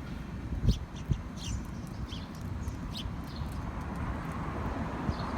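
Small birds chirping: short, high, downward-sliding calls repeated irregularly, over a steady low rumble.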